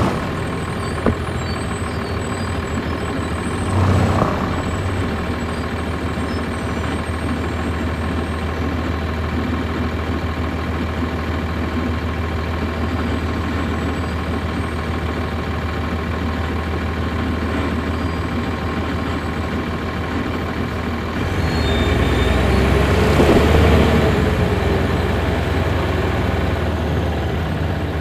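Cummins ISC diesel engine of a 1999 NovaBus RTS transit bus, heard from inside the bus, running with a steady low hum. There is a short louder sound about four seconds in. Near the end the engine grows louder with a rising whine, as if pulling away, then eases off.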